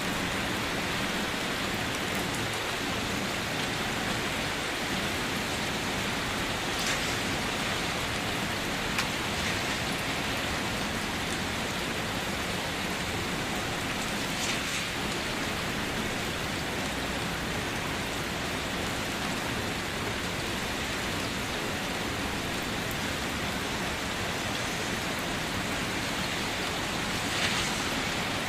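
Steady rain falling and pattering on surfaces, an even hiss with a few sharper, louder drops now and then, the loudest near the end.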